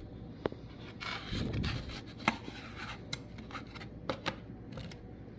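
Buffalo nickels being handled one at a time: a handful of sharp clicks as coins knock together and are set down, with a brief rubbing shuffle about a second in.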